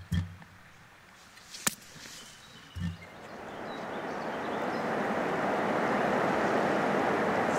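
River water rushing, fading in over a couple of seconds and then holding steady. Before it come a few soft low thumps and one sharp click.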